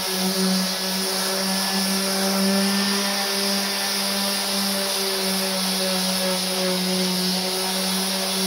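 Corded random orbital sander running steadily with a constant hum, sanding the flat face of a painted, v-carved wooden sign.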